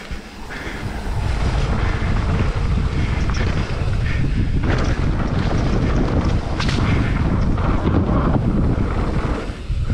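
Wind buffeting the microphone over the rumble of a mountain bike rolling fast down a dirt trail, building up about a second in and then holding steady, with a few sharp knocks from the bike over the bumps.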